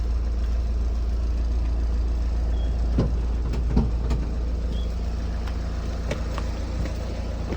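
Van engine idling with a steady low rumble, with a few knocks and bumps about three, four and six seconds in.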